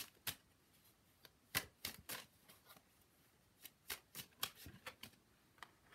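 Tarot cards being shuffled by hand: soft, irregular snaps and slides of card on card, some coming in quick clusters.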